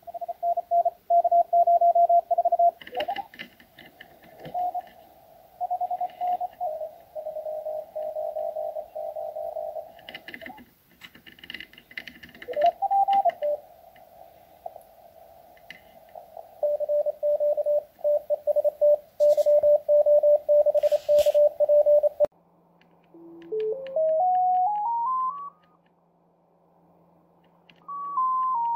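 Morse code telegraphy received on a home-built Joker SDR transceiver: several stations' keyed tones around 600–700 Hz over receiver hiss, with a brief tuning glide about halfway. About 22 seconds in it cuts to a single tone stepping upward in pitch over a low hum, then starting to step back down near the end, as the receiver's digital filters are tested.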